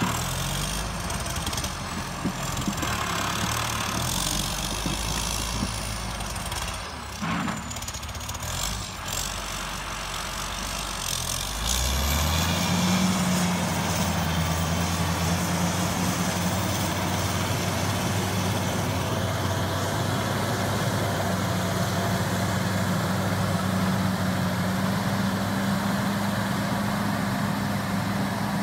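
John Deere 670CH motor grader's diesel engine running as the machine grades dirt. About twelve seconds in, the engine speeds up, then holds a steady, louder, higher note.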